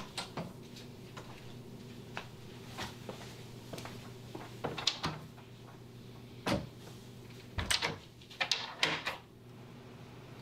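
A door being shut and secured: scattered knocks and latch clicks, the loudest group coming in the second half, over a low steady hum.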